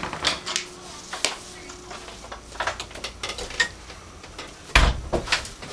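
Footsteps of someone walking while carrying a camera: a run of irregular knocks and clicks, with one heavier thump about five seconds in.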